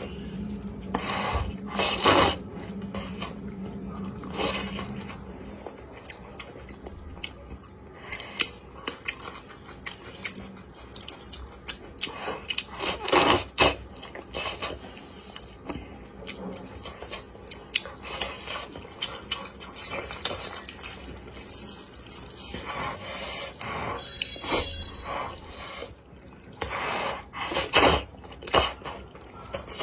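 A person slurping spicy wide noodles in sauce at close range, with chewing and wet mouth sounds between. The loudest slurps come about two seconds in, around thirteen seconds, and again near the end.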